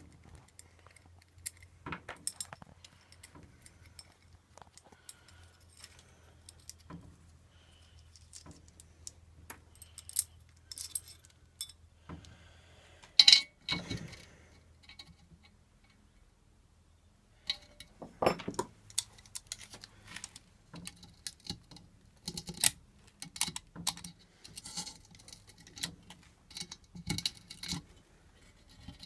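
Scattered clicks, taps and short rattles of small metal scooter parts and tools being handled while a stunt scooter brake is fitted, with two louder knocks about halfway through.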